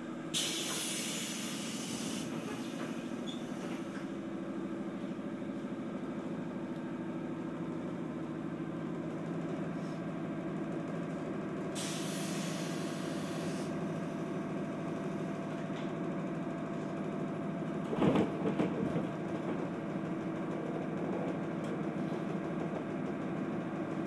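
Onboard running sound of a JR 211 series electric train's motor car: a steady hum of the traction motors and wheels on the rails. Air hisses twice, about two seconds each time, once near the start and once about halfway through. A brief louder clatter of the wheels follows a little later.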